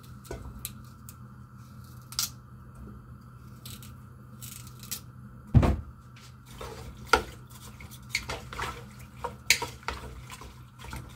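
Knife cutting carrot pieces that drop into an empty aluminium pressure-cooker pot, then a kitchen spoon stirring and clinking against the pot's metal sides in quick irregular knocks. A single heavy knock about five and a half seconds in is the loudest sound.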